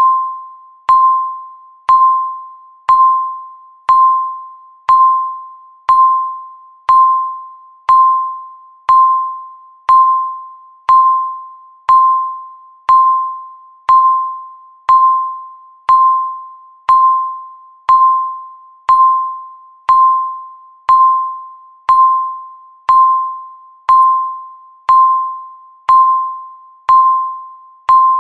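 Countdown timer beeping once a second, one beep for each second left. Each beep is the same single mid-pitched tone that starts sharply and fades away before the next one.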